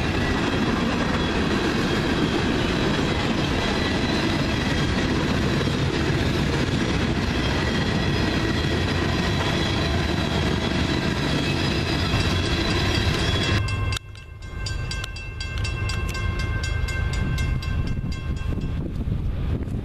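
Freight cars rolling past close by, a steady rumble and clatter of wheels on rail. About fourteen seconds in, it cuts to a distant approaching CSX freight led by ES44AH 3145 sounding its horn, a steady multi-note chord lasting about five seconds, with wind buffeting the microphone.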